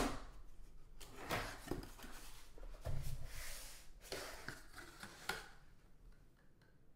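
Hands handling half-dollar coin rolls and their box: scattered clicks and rustling, with a soft thump about three seconds in, dying away in the last second or so.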